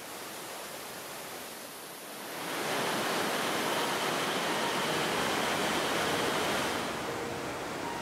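Rushing water of a mountain stream running over rocks, a steady hiss that swells louder about two and a half seconds in and eases back near the end.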